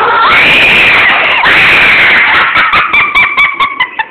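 Loud, long high-pitched screech that breaks once about a second and a half in, then carries on slightly lower, with a rapid clicking rattle in the last second, as the ghost train ride car runs through the dark.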